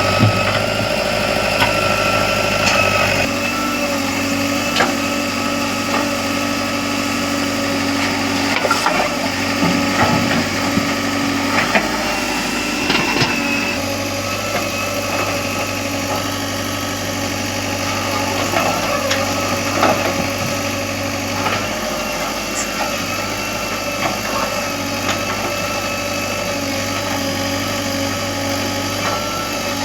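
Heavy diesel engine running steadily, with scattered short knocks and clanks.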